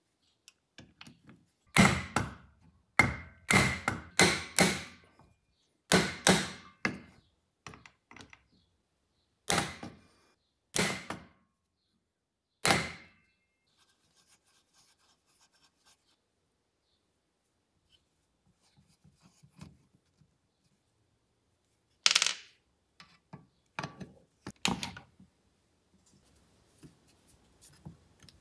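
Hammer blows on a hand impact driver, struck to break loose seized screws on a throttle body: a run of about a dozen sharp strikes in the first half, some in quick pairs, then a few more knocks later on.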